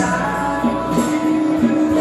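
A small band playing a mellow song live: acoustic guitar, lap steel guitar and congas over an electronic backing track, with long held notes.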